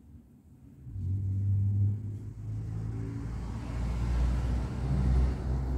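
Low engine rumble of a motor vehicle, starting about a second in and growing fuller toward the end.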